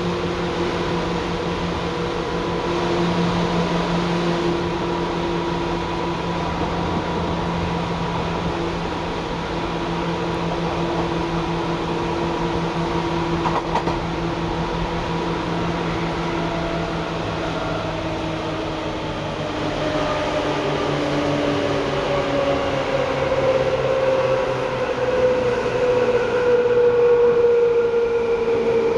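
Seibu 2000 series electric train running, heard from aboard: a steady whine and hum from the motors and gears. From about 17 seconds in, the tones slide down in pitch as the train slows, and the running noise grows louder near the end.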